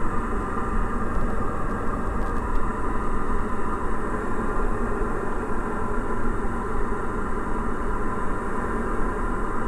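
Steady drone of a Diamond DA40 NG's Austro AE300 turbo-diesel engine and propeller, heard inside the cabin, with power pulled back for a gentle cruise descent.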